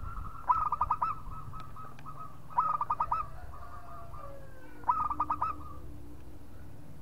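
Zebra dove (perkutut) singing: three bursts of quick staccato coos, about two seconds apart.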